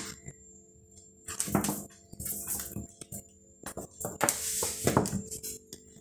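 A cat batting a raw chicken foot across a hard floor and pouncing on it: three or four spells of scuffing, skittering and light clattering, over a steady low hum.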